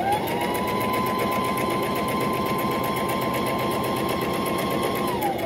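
Brother electric sewing machine sewing a row of long basting stitches at steady speed: the motor whine rises as the foot pedal is pressed, holds over the rapid needle strokes, and falls away as it slows to a stop near the end.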